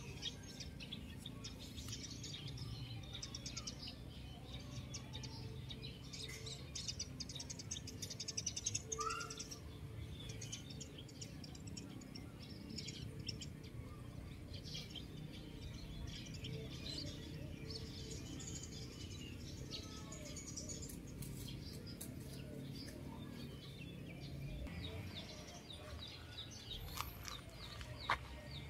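Small birds chirping and twittering, many short high calls coming thick and fast, with a louder flurry about nine seconds in and a single sharp click near the end.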